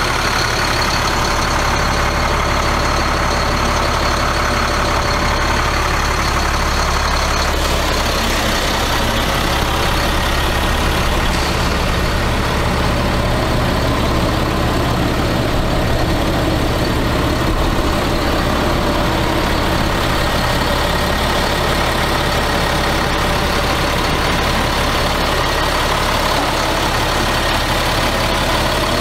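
Caterpillar C7 inline-six diesel engine of a Ford F750 medium-duty truck idling steadily.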